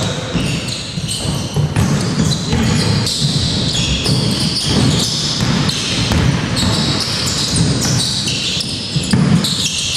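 A basketball being dribbled and bouncing on an indoor court during live play, with repeated bounces and short high squeaks throughout.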